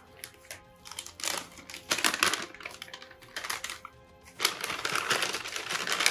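Plastic MRE flameless ration heater bag being handled and opened out by gloved hands, crinkling in bursts about a second in and again from about four and a half seconds in, with background music underneath.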